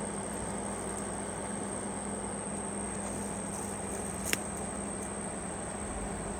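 Steady background hum and hiss with a thin high whine, broken by one sharp click a little over four seconds in.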